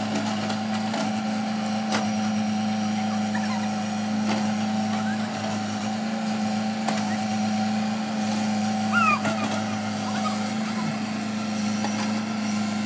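JCB crawler excavator's diesel engine running steadily while the machine digs, with a brief high chirp about nine seconds in.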